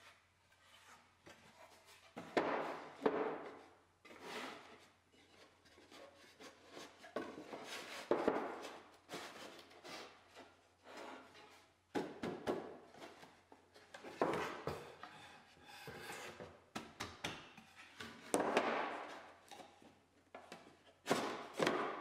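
Old wooden drawer being handled on a workbench: its loose bottom board slides and scrapes against the drawer's sides, in several rubbing passes a couple of seconds apart, with light wood-on-wood knocks between them.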